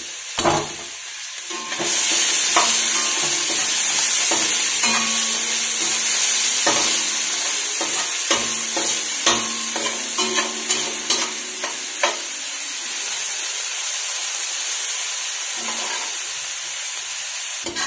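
Chopped onions and cumin seeds sizzling in hot oil in a kadai while being sautéed, stirred with a spatula that scrapes and taps against the pan. The sizzle grows louder about two seconds in, with scattered sharp taps of the spatula.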